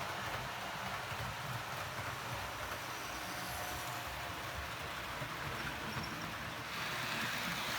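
Model D443 diesel locomotives running on a model railway track: a steady rolling hiss of motors and wheels on rail, which grows louder near the end.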